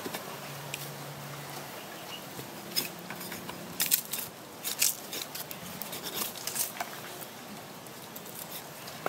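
Knife butchering a raw plucked duck on a stone slab: irregular sharp clicks and crunches as the blade slices through meat and joints, busiest in the middle.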